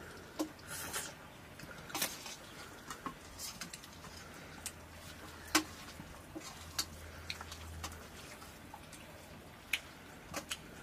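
Eating at metal plates: scattered soft clicks and taps of fingers and a spoon against the plates, with the sharpest click about five and a half seconds in. A faint low steady hum sits underneath.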